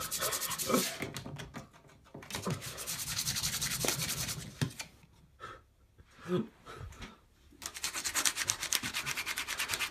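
Scissor blade scraped rapidly back and forth across the face of a DVD disc, in three spells of quick, even strokes with short pauses between.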